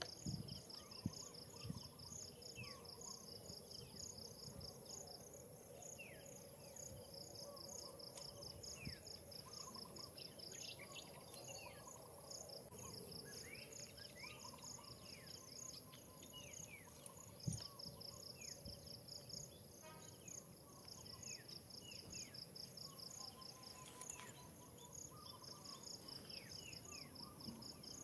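Faint insect chorus: an insect chirping in repeated runs of quick, even pulses a few seconds long over a steady high-pitched drone, with scattered short chirps and a couple of soft knocks.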